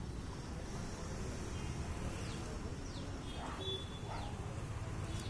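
Outdoor ambience: a steady low rumble with a few brief, high, falling bird chirps scattered through the middle.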